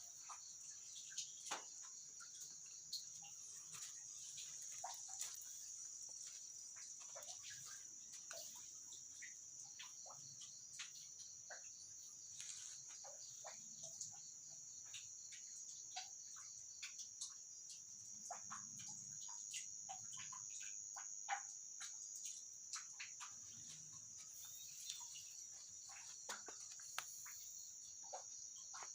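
Night chorus of crickets: a faint, steady high-pitched trill, with many short chirps and clicks scattered over it.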